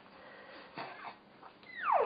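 A short hiccup a little under a second in, then a loud high-pitched vocal squeal that slides steeply down in pitch near the end.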